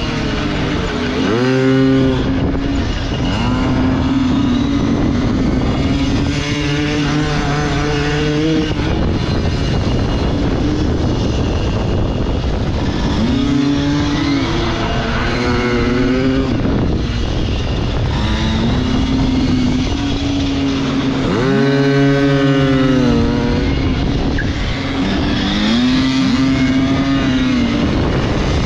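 Pit bike's small single-cylinder engine heard onboard at full lap pace, revving up hard out of each corner and dropping off into the next, over and over, over a steady rush of wind noise.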